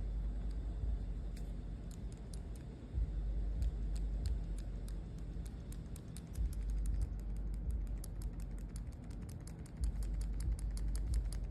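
Rapid clicking, irregular at first and quickening to several clicks a second near the end, over a low rumble.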